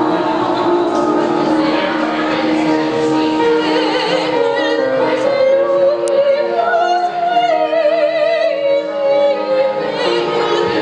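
A woman singing a romantic Italian opera aria in classical style, her held notes wavering with vibrato, over steady instrumental accompaniment.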